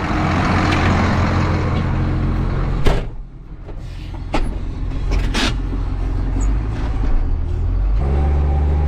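Tractor engine running steadily. About three seconds in there is a sharp clunk, after which the engine is much quieter and muffled, with a few clicks. Near the end a loud, deep, steady engine drone returns.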